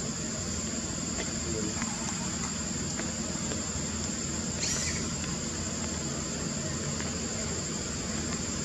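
Steady high-pitched insect drone over a constant outdoor background hiss, with one brief high chirp a little past halfway.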